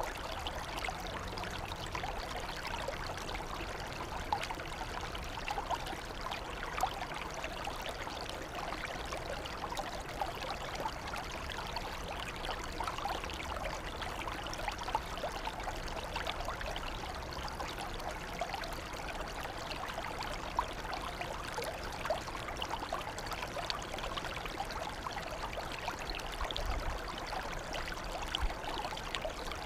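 Shallow water flowing and trickling in a flooded rice paddy: a steady, even trickle.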